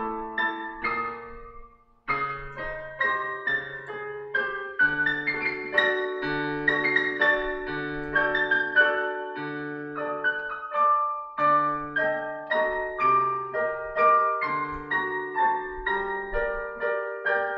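Solo piano playing a melody over steadily repeated low bass notes, with a short break about two seconds in before the playing resumes.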